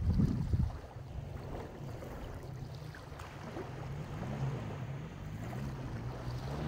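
Wind buffeting the microphone at the seashore over a low rumble of surf, with a strong gust in the first half-second.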